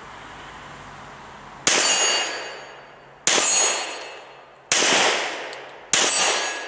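Four shots from a Glock 17 9mm pistol, the first about two seconds in, then roughly one every second and a half, each followed by the steel plate target ringing out and fading after the hit.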